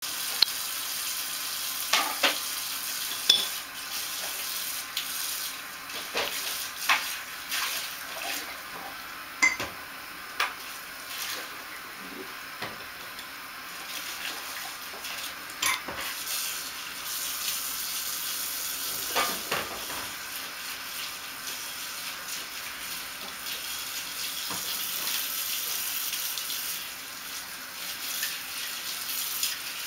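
Household background noise: a steady hiss with scattered sharp clinks and knocks, about a dozen spread across the stretch. These are the kind of domestic kitchen sounds a cat turns its head toward.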